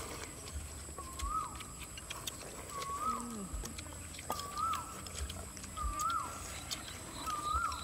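An animal calling over and over, each call a short note that rises and then drops sharply, about every one and a half seconds, with scattered light clicks of spoons and chopsticks against bowls.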